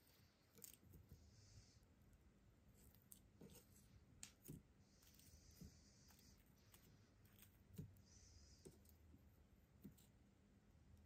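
Very faint, scattered clicks of metal tongs against a wire mesh grill as broccoli is turned over charcoal, with a few short patches of soft hiss.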